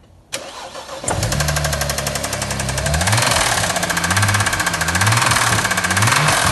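BMW N54 twin-turbo straight-six starting with a brief crank, catching about a second in, then running with small blips of revs and a loud, fast metallic rattle that grows stronger about three seconds in. The owner suspects a failed big-end (connecting-rod) bearing.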